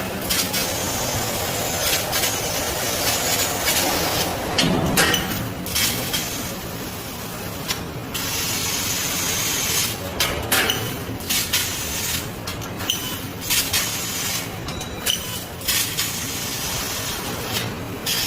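CNC laser cutting machine cutting sheet metal: a steady hiss of the cutting head's gas jet, cut off briefly several times as the head stops between cuts.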